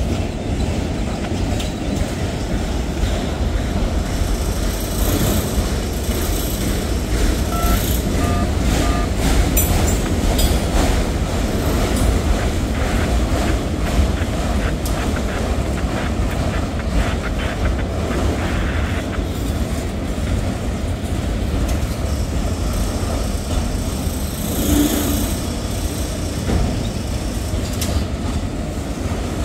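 Freight train of autorack cars rolling past: a steady, loud, low rumble with scattered clacks of the wheels over the rails.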